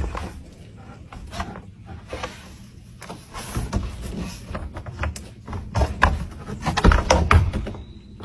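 Black bear climbing down off a wooden deck railing: claws scraping on the wood with a string of knocks and thumps, heaviest about six to seven and a half seconds in.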